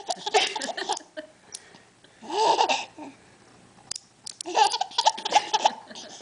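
A baby laughing hard in bursts of pitched squealing laughs, with a quieter pause of about a second and a half in the middle before the laughing starts up again.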